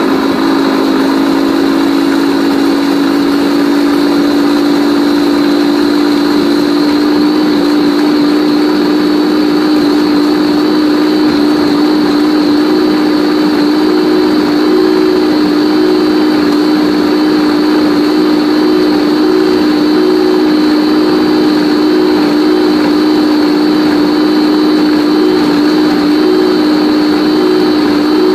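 Motor of a Chicco baby food steamer-blender running steadily at one speed, its blade puréeing soft cooked vegetables and turkey. It is loud and even, with a steady hum and a thin high tone above it.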